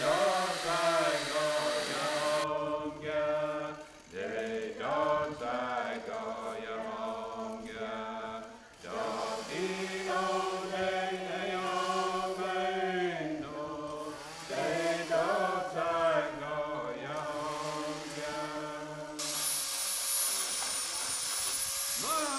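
Background music: chanted singing, with long held notes and sliding pitches.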